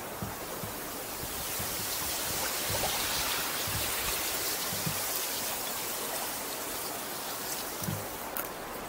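Fast-flowing river water rushing past the rocky bank, a steady hiss that grows louder in the middle. A few soft low thumps sound through it.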